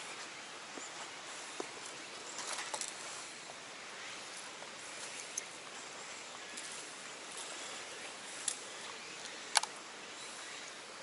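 Quiet steady outdoor hiss with soft rustling of footsteps through wet grass and a few light ticks. One sharp click about nine and a half seconds in is the loudest sound.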